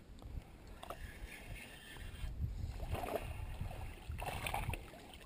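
A hooked fish splashing and thrashing at the water's surface while it is played on a bent spinning rod, strongest in the second half. A low rumble runs underneath.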